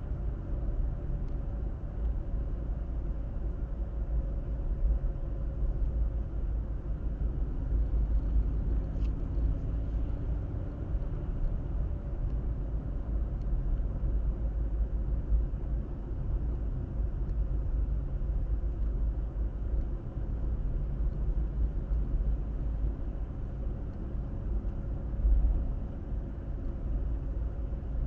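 Steady low rumble of road and engine noise inside a moving car, picked up by a dashcam microphone. There is a brief louder bump near the end.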